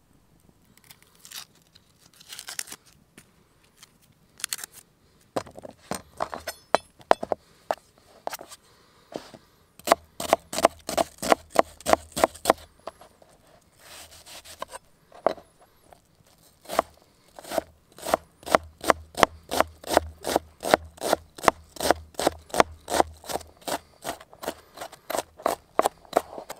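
Chef's knife chopping an onion on a plastic cutting board. Quick, even strokes at about four a second start about five seconds in, stop briefly midway, then carry on.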